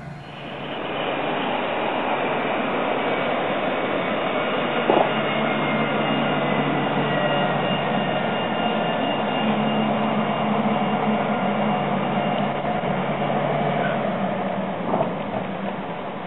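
Alstom Citadis tram running in and slowing to a stop: a steady rolling noise with electric motor whines, one falling in pitch as it brakes, and a few short knocks.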